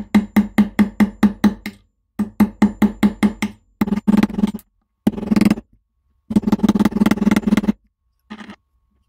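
Metal clicking from a hex driver turning a screw in the shaft end of a cast-iron hand grinder. It starts as runs of even, sharp clicks, about six a second, and turns to denser rattling in short bursts.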